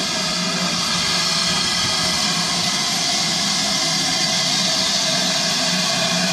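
Small steam tank locomotive running slowly, giving a loud, steady hiss of steam with no separate exhaust beats.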